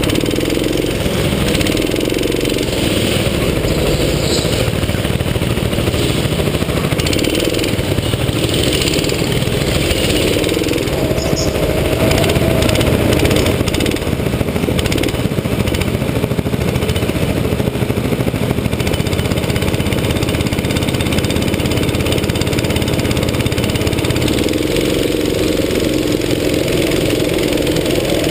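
Go-kart engine running steadily as the kart drives round the track, a dense engine drone that holds fairly even throughout.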